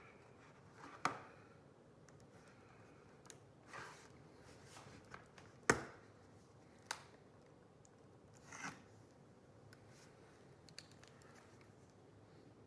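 Pry tool being worked under a laptop LCD panel against its adhesive: scattered small clicks and a few short scrapes, the sharpest click about six seconds in.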